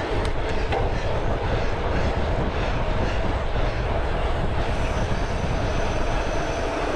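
Steady wind buffeting a GoPro's microphone as a bicycle is ridden along a road, mixed with the rumble of the tyres on tarmac.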